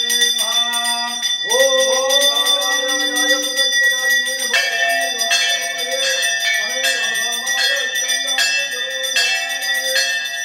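Temple hand bell ringing continuously during an aarti, with a chanting voice holding long notes beneath it. About four and a half seconds in, a regular beat of roughly one and a half strokes a second joins.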